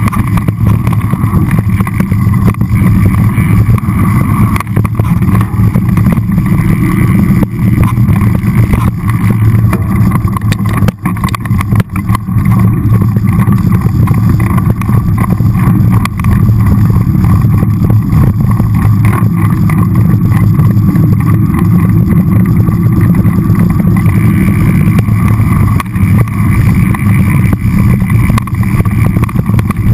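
Mountain bike descending a dry dirt and rocky singletrack, picked up by its on-board camera: a loud, steady rush of wind and tyre rumble, broken by frequent small knocks and rattles from bumps on the trail.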